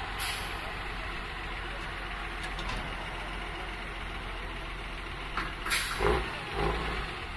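Heavy off-road trial truck's diesel engine running steadily. A few short, louder bursts of noise come about six seconds in.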